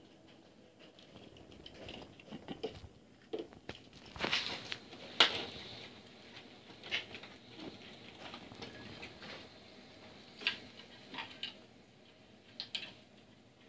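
Pet raccoon dabbling its paws in a bowl of water in a stainless-steel sink: small irregular splashes and patters with clinks and knocks of crockery against the metal. The sharpest knock comes about five seconds in.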